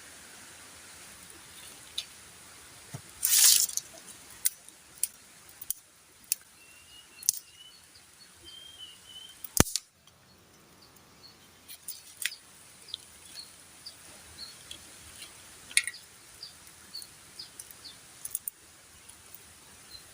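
Scattered sharp clicks and knocks at irregular intervals, with a louder rustling burst about three seconds in and a sharp snap near the middle. Faint bird chirps sound in the background.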